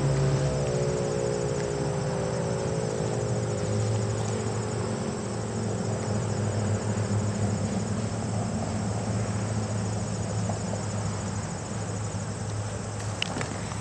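Federal Signal 508 outdoor warning siren winding down, its tone falling slowly and fading out about halfway through. Crickets chirp steadily under it, with a low steady hum.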